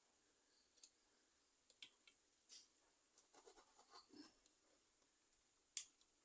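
Faint clicks and scrapes of metal pliers handling a small magnet and the oil-filter parts of a motorcycle engine, with a cluster of small ticks in the middle and one sharper click near the end.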